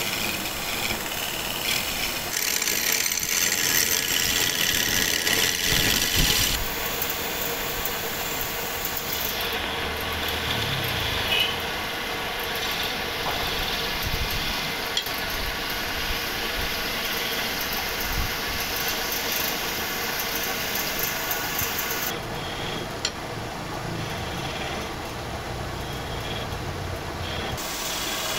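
Wood lathe running with a steady motor hum while a hand chisel cuts into the spinning wooden handle, a hissing scrape as shavings come off. The cutting is loudest for a few seconds near the start.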